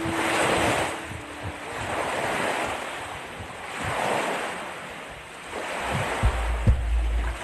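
Small lake waves washing in at the shore, the sound swelling and fading about every two seconds. Near the end, wind rumbles on the microphone with a couple of thumps.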